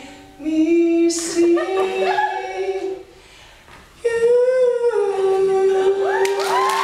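Two male voices singing the song's closing held notes, with a quieter break about three seconds in before one long final note. Near the end the audience breaks into cheering and whoops while that last note is still held.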